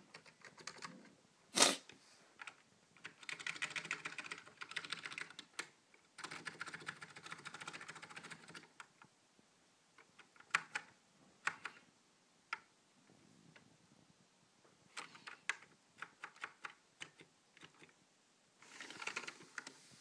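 Typing on a Matias Quiet Pro mechanical keyboard with non-click Alps-style switches: muted keystroke clacks in fast runs, broken by pauses and scattered single strokes. One sharp knock about a second and a half in is louder than the keystrokes.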